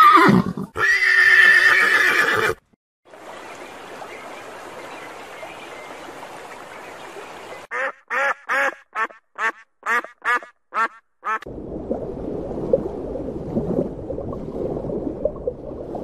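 A horse whinnying loudly for about two and a half seconds. After a quieter stretch, mallard ducks give a run of about a dozen short quacks, around three a second. Near the end comes a low, steady rushing noise.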